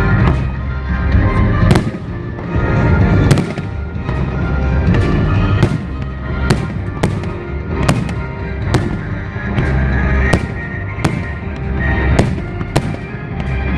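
Fireworks bursting in a steady string of sharp bangs, roughly one or two a second, over loud music with a deep low rumble.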